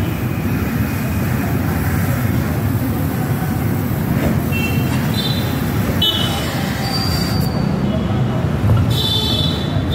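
Oxy-acetylene gas welding torch flame running with a steady rushing noise while the cut seam of a refilled shock absorber tube is welded shut with filler rod, sealing it against leaks. Short high-pitched squeals come and go over it, several in the second half.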